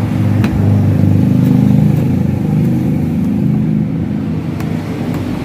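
A motor or engine running steadily with a low, slightly wavering hum, with a few light clicks.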